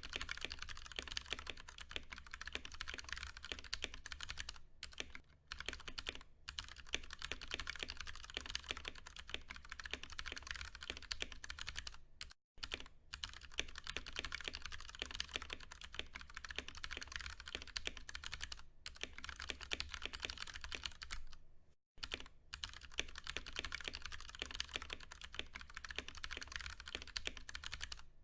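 Continuous fast typing on a Ducky One 2 Mini mechanical keyboard with tactile, non-clicky Cherry MX Brown switches, a dense stream of keystrokes. The typing stops briefly twice, about twelve and twenty-two seconds in.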